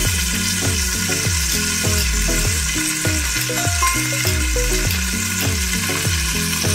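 Chicken sizzling steadily in a covered Saladmaster electric skillet, under background music with a deep bass beat.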